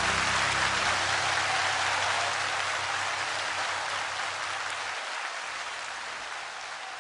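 Applause, an even wash of clapping that gradually fades, over the last held notes of a music track that die away about five seconds in.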